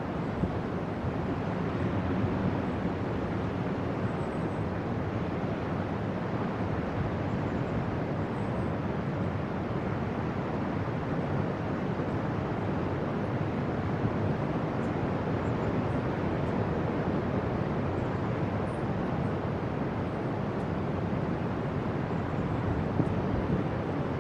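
Steady, even rush of distant ocean surf, with no single wave breaks standing out.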